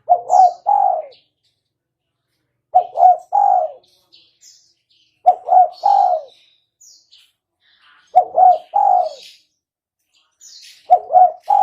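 Spotted dove (tekukur) cooing: a three-note phrase with the last note longest, repeated five times about every two and a half to three seconds. Faint high chirps from small birds come between the phrases.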